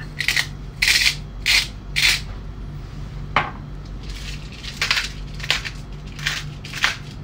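Salt and pepper grinders being twisted: short, gritty grinding bursts in two runs, one in the first two seconds and another from about halfway through, with a single click between them.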